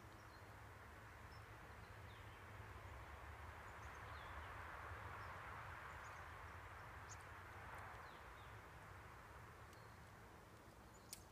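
Near silence: faint outdoor ambience, a soft even hiss that swells in the middle and fades, with a few short, faint bird chirps scattered through it.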